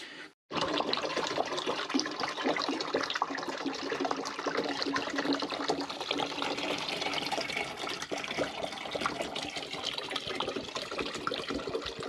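Oily bilge water gushing through a funnel into a large plastic bottle, gurgling and bubbling as the bottle fills. The steady rush starts about half a second in.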